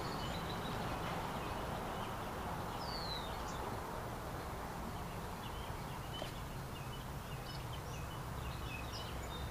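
Outdoor ambience: a steady background rush with a bird giving one short, high falling whistle about three seconds in, and a few faint chirps later on.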